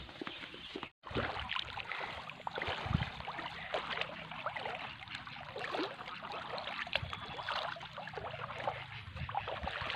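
Shallow, muddy stream water sloshing and splashing around feet wading through it, a continuous patter of small splashes and trickles. The sound drops out briefly about a second in.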